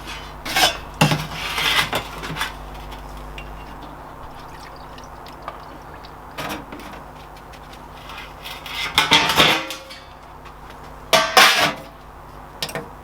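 Carburettor parts clinking and clattering as they are handled, in several separate bursts of hard knocks and rattles.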